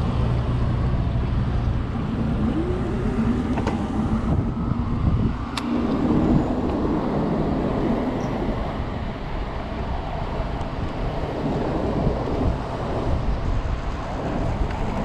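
Steady road and traffic noise with wind rush on the microphone, heard from a moving e-bike in city traffic, with a few passing vehicles and a sharp tick about five and a half seconds in.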